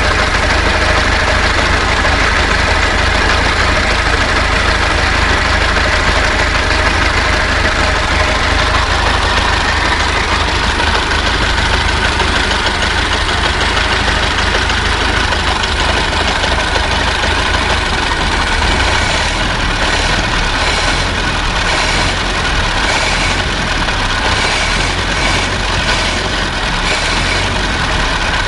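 Old car's engine idling steadily.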